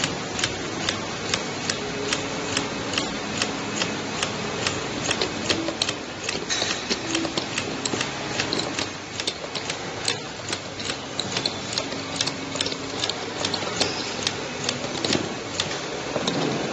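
Automatic vertical bottle labeling machine running: a steady mechanical noise from its chain conveyor and drive, with sharp, even clicks about two to three times a second as the bottles are labeled.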